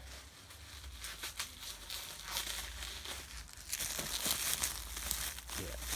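Plastic bubble wrap being handled and unwrapped from an action figure: irregular crinkling and rustling with small crackles, getting busier and louder near the end.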